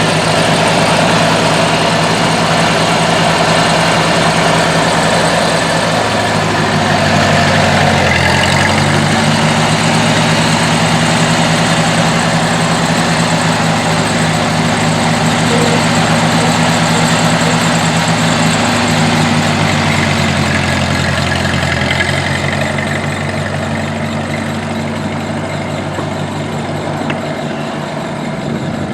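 Ford 8N tractor's four-cylinder gasoline engine running on its first test run after a rear-end repair, its note shifting a few times as the revs change and growing fainter near the end.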